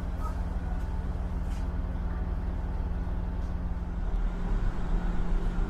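A vehicle running: a steady low rumble with a steady hum, the deepest rumble growing stronger about four seconds in.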